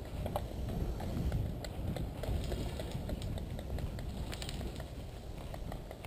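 Footsteps and rustling of gear as a player moves on foot, with a low uneven rumble and a few scattered sharp clicks.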